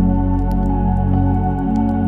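Ambient music of long held notes, over scattered light crackles of a wood fire.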